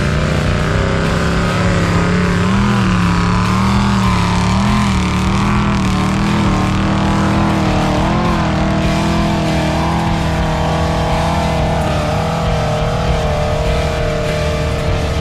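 Sand rail engine running hard under load on a dune climb. The engine note holds high and steady with small surges in pitch as the throttle is worked.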